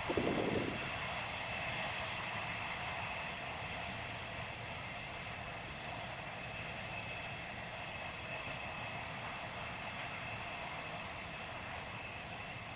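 Freight train rolling past on the line: a steady rolling rumble and rail noise, with a low thud or two at the very start.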